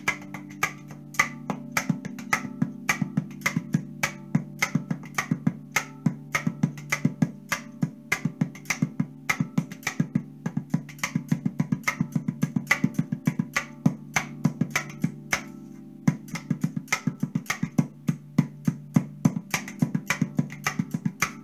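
Hands drumming on the back side of a 13-note custom Pulsar tonguepan, a steel tongue drum: quick slaps and taps at about five a second over a steady low ringing of the drum's notes. The strikes stop briefly about fifteen seconds in, then start again.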